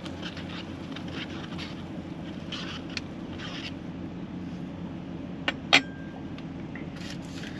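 Metal spoon scraping and clinking in a cooking pot as rice and water are stirred, with a sharp clink a little past halfway, over a steady low hum.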